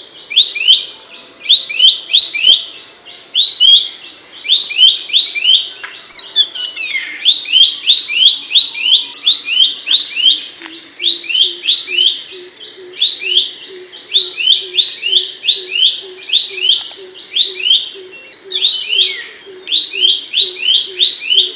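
Abbott's babbler (pelanduk semak) singing loud, sharp notes in quick runs of two to four, repeated with only short breaks.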